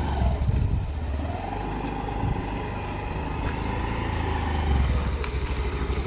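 Motor scooter engine running as it rides off. A whine climbs about a second in, holds steady, and drops away near five seconds.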